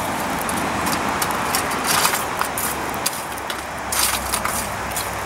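Coal forge fire with a steady rushing roar, while a steel poker scrapes and clinks through the coal.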